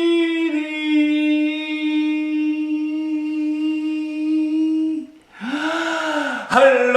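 A man singing unaccompanied as part of a yodel song: one long held note, stepping slightly lower about half a second in and held for about five seconds. After a brief break comes a short breathy vocal swoop that rises and falls in pitch.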